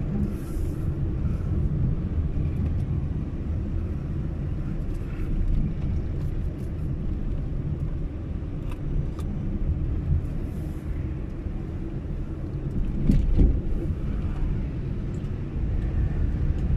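Road and engine noise of a moving vehicle on a winding road: a steady low rumble that swells briefly about 13 seconds in.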